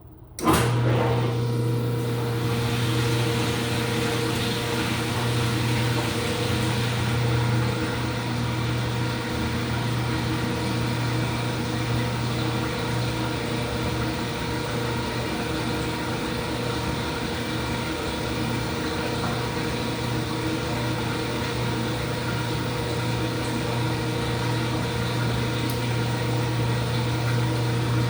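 Ipso washing machine's motor starting abruptly about half a second in, then running with a steady, even hum.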